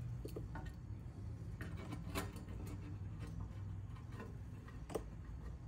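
Small flat screwdriver clicking and scraping against the oil pan around the drain-plug hole, prying off the old drain-plug gasket that has stuck to the pan. The clicks are sharp and irregular, the loudest about two seconds in and again near five seconds, over a steady low hum.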